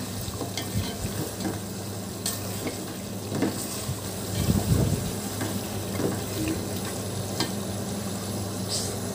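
A spatula stirs chicken pieces through a spiced gravy frying in a metal pot, with soft scrapes and light knocks against the pot over a steady sizzle. A low steady hum runs underneath.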